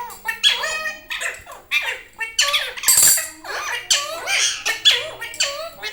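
Pet parrot calling: a quick run of squeaks and chattering calls that bend up and down in pitch.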